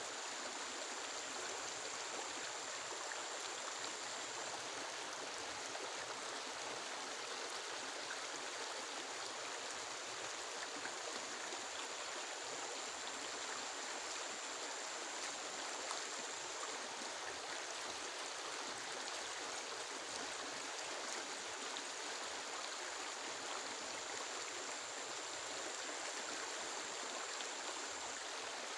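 Steady rush of heavy rain. A thin, high-pitched steady whine comes in three times over it, each time for several seconds.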